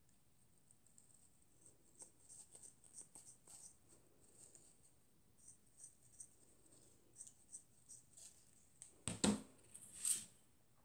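General-purpose scissors, not fabric shears, snipping through printed fabric in a series of quiet cuts. About nine seconds in there is a louder thump, followed by a brief rustle as the cut fabric is laid down.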